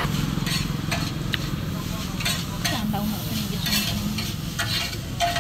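Irregular light scrapes and clicks, like utensils working in food, over a steady low hum of background noise.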